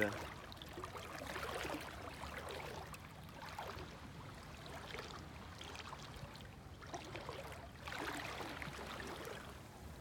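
Shallow seawater sloshing and swishing around a person's legs as they wade, in soft irregular surges.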